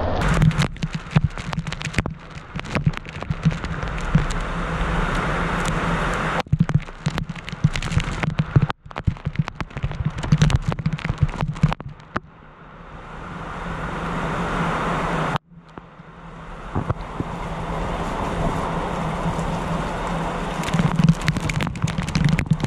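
Heavy rain and gusting wind in a thunderstorm, with raindrops hitting the camera's microphone as a dense crackle of sharp taps. The noise eases a few times and then builds back up.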